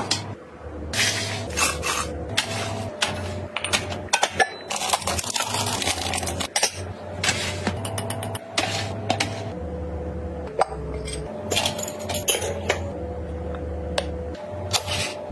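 Clinks and knocks of containers and packaging being handled, with short rustling bursts, over soft background music.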